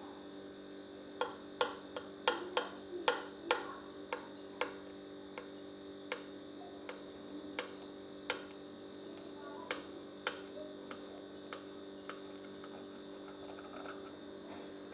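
A knife clicking and tapping against a plate while cutting a thick potato-and-egg omelette: a quick run of sharp clicks a second or so in, then slower scattered ones. A steady hum sits underneath.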